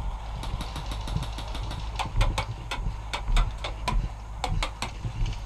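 Airsoft gunfire: a run of sharp, irregularly spaced shot clicks starting about half a second in, over low thumps of movement and gear handling.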